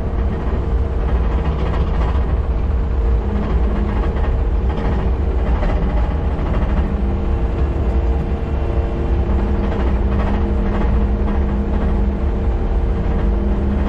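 Takeuchi compact track loader's diesel engine running steadily while it moves a trailer loaded with lumber: a loud low rumble with a steady drone over it, and a lower tone that comes and goes.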